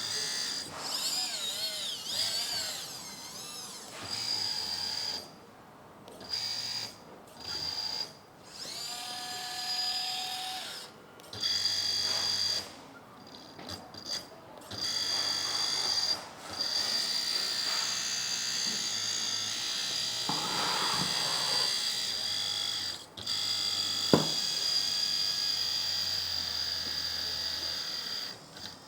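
Hydraulic pump of a 1/14-scale metal RC hydraulic excavator running with a high-pitched whine, cutting in and out repeatedly as the arms are worked, its pitch wavering at times under load. There is a single sharp click about 24 seconds in.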